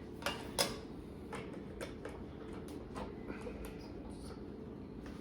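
Plastic Lego pieces being handled and fitted together: a string of small, irregular clicks and taps, the two sharpest within the first second.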